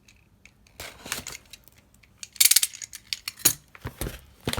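Handling noise from a small cardboard collectible box being picked up and opened: a run of sharp clicks and clatters, loudest in a quick cluster about halfway through.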